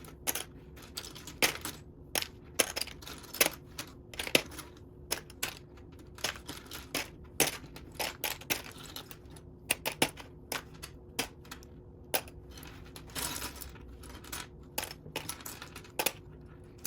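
Loose plastic Lego pieces clicking and clattering against one another as a hand sifts through a pile of them, in irregular sharp clicks a couple of times a second.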